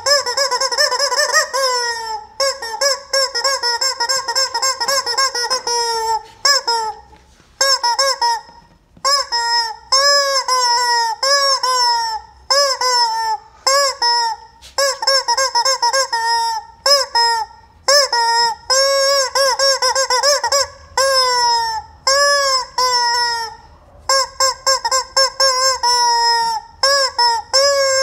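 Yellow rubber screaming chicken toy squeezed over and over, letting out loud honking squawks. A few long drawn-out squawks come first, then a quick run of short ones, about one a second, each dipping in pitch at its end.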